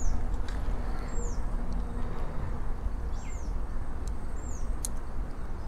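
A bird calling four times, each a short high note that drops quickly in pitch, a second or two apart. In between come a few faint sharp clicks from the plastic phone-holder clamp being handled and fitted on the handlebar.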